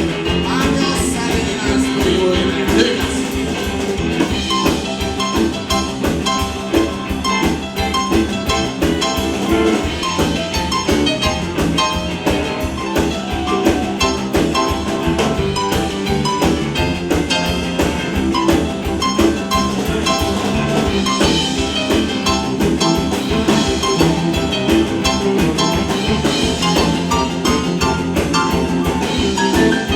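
Live rock and roll band playing a boogie-woogie number, with a drum kit keeping a steady beat under the instruments.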